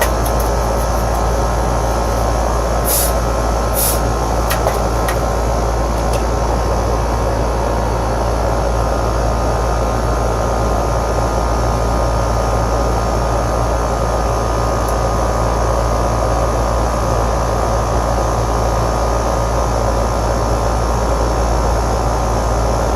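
Air-conditioning equipment running steadily, a strong low hum under an even mechanical rush. A few light ticks at the start, and two short high hisses about three and four seconds in.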